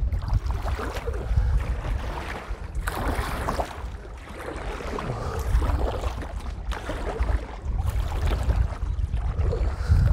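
Strong wind buffeting a lavalier microphone, a steady low rumble, with water lapping and splashing against a kayak hull on choppy water.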